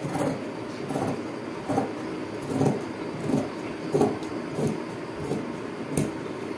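Large tailor's scissors cutting through fabric in a steady run of snips, about nine cuts at roughly one every three-quarters of a second.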